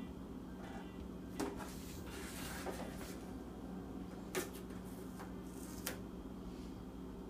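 Handling noise of a tape measure being repositioned and held against an outboard motor's cowl: three short clicks or knocks and a brief rustle, over a steady low hum.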